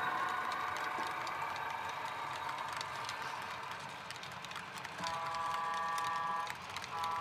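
HO-scale model freight cars rolling over the track with a steady rumble and scattered clicks at the rail joints. About five seconds in, the model locomotive sounds a long multi-note signal blast, then a second one begins near the end.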